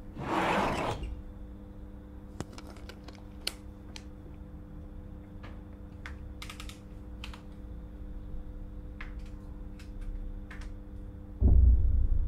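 Film sound design: a short loud whoosh at the start, then scattered small sharp clicks and taps over a steady low drone, and a deep low boom near the end.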